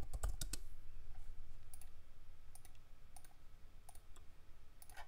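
Computer keyboard keystrokes in a quick run at the start, then a handful of scattered single clicks over a faint low hum.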